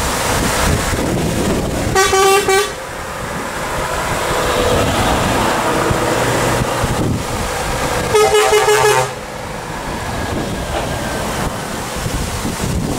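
Truck horn sounding two blasts, each under a second long and about six seconds apart, over the steady noise of lorries driving past.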